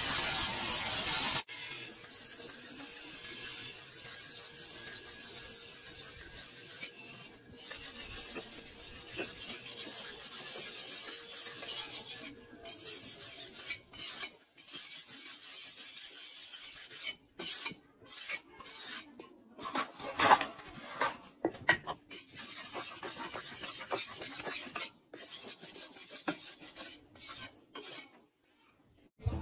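Spring-steel kitchen knife blade being sharpened on a whetstone: a rasping scrape of steel on stone, stroke after stroke, the strokes coming apart with short pauses in the second half. For about the first second and a half a louder spinning disc grinds against the blade.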